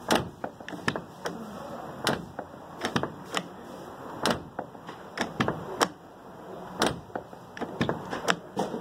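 Volkswagen Transporter T4 door handle and lock being worked over and over, a string of irregular sharp clicks and clunks about two a second. The lock has just been cleaned and fitted with a new spring.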